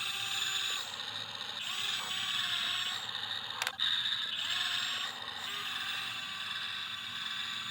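Small electric motors of a radio-controlled excavator whining as the model works, with a sharp click about three and a half seconds in.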